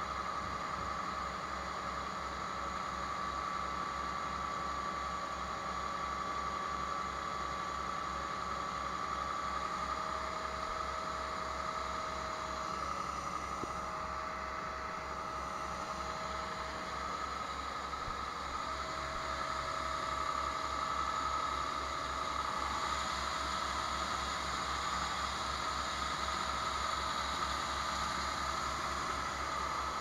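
Tractor engine running steadily to drive a grain auger, with a steady high hum and the hiss of shelled corn sliding from a gravity wagon into the auger hopper.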